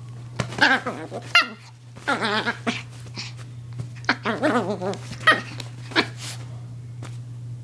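Small dog growling and snarling angrily in several wavering bursts, with short sharp snaps and clicks between them. A steady low hum runs underneath.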